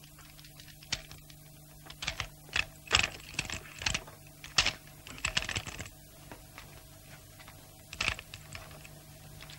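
Irregular sharp clicks and small knocks of hands working a small hard object, a dozen or so, coming thickest in the middle and trailing off with a last pair near the end, over a low steady hum.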